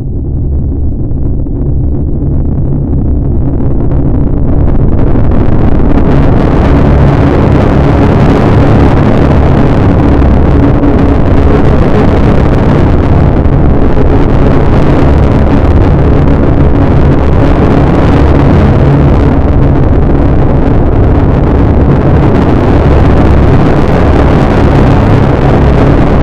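Heavily distorted electronic noise at full volume from loudspeakers: a dense hiss over a steady low hum, spreading higher and growing louder over the first few seconds, then holding steady.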